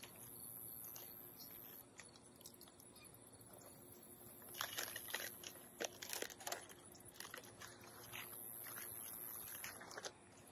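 Coil of plastic drip-irrigation tape being handled and freed from its ties: faint crinkling and rustling with scattered small clicks, busiest about halfway through.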